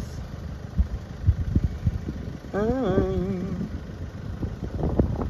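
Road vehicle engine idling steadily, with low wind buffeting on the microphone and a brief wavering voice about halfway through.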